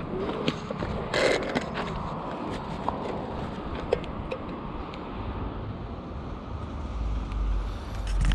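Road traffic sound: a motor vehicle running in a street, with a brief scraping rustle about a second in and a low rumble that swells near the end.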